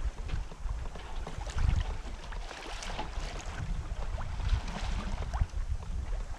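Wind buffeting the microphone in gusts, over water rushing and splashing along the hull of a Westsail 32 sailboat under sail.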